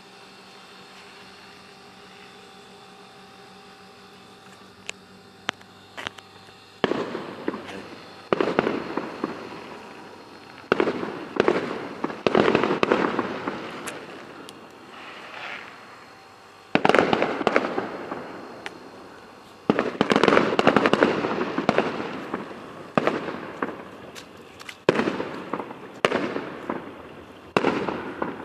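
Fireworks going off. After a few quieter seconds, sharp single bangs start about five seconds in, followed by repeated volleys of bursts, each dying away in crackle.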